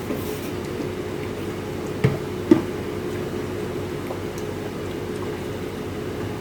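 Desktop PC running with a DIY water-cooling loop: a steady hum of fans and the coolant pump, with liquid moving through the loop. Two short knocks come about two seconds in.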